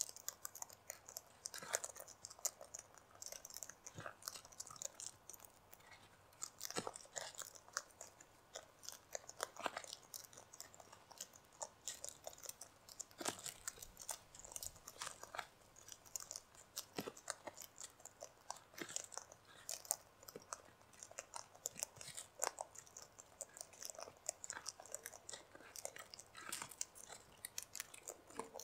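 Sulphur-crested cockatoos cracking and crunching seed in their beaks: a dense, irregular run of sharp cracks and clicks from several birds feeding at once.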